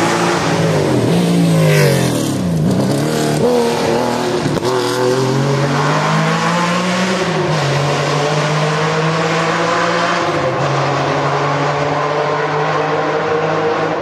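Rally car engine passing at speed. Its pitch drops sharply as it goes by, then climbs as it pulls away under acceleration and settles into a steady note.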